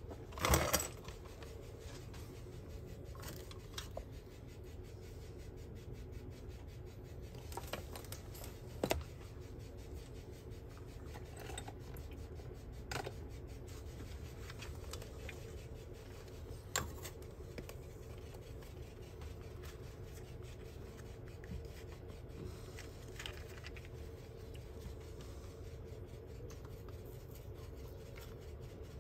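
Scattered light scrapes and clicks of small hand tools working on an electronics circuit board, over a steady low hum.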